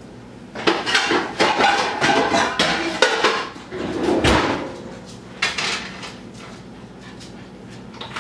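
Pots and pans clattering as a dark frying pan is pulled out from a low cupboard, then set down on the electric coil stovetop with a heavier thump about four seconds in. A few small clicks follow.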